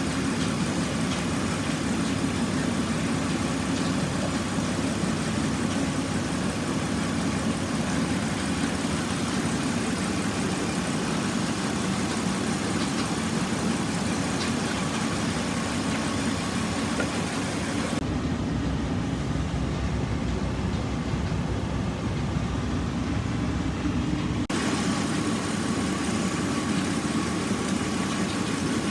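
Jeep Cherokee XJ engine idling steadily while its cooling system is burped of trapped air. For about six seconds past the middle the sound turns muffled, with more low rumble, then clears again.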